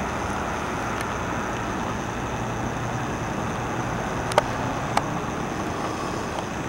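Steady low rumble of distant engine noise, with a few sharp clicks about a second in and again past the middle.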